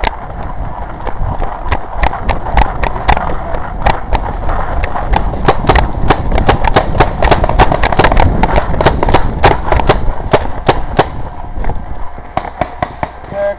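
Footsteps crunching through dry leaf litter and twigs on a forest floor, with knocks and rustling from the handheld camera jostling.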